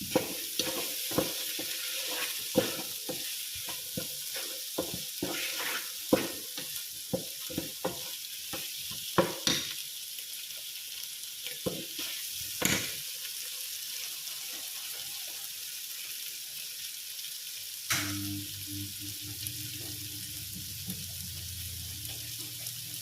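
Carrots, potatoes and green beans sizzling in a frying pan while a utensil stirs them, knocking and scraping against the pan many times in the first half. About three-quarters of the way through, a click is followed by a low steady hum under the sizzle.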